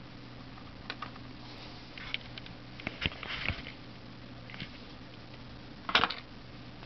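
Several short clicks and light knocks from hands handling a small perfboard relay circuit, with a cluster of louder knocks about six seconds in. A steady low electrical hum runs underneath.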